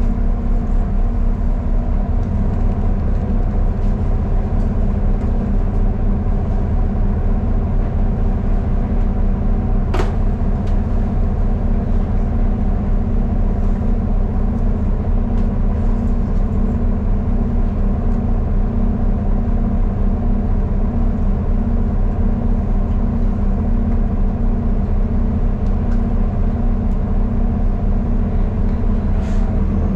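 City transit bus running steadily on the road, a constant engine and road drone heard from inside the bus, with one sharp click about ten seconds in.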